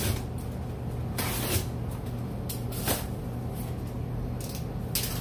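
A cardboard shipping box being opened by hand: several short bursts of tearing and scraping from packing tape and cardboard, the longest about a second in, over a steady low hum.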